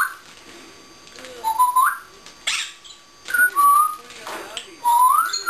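African grey parrot whistling: short rising whistles, about one every second and a half, with a short harsh noise between them.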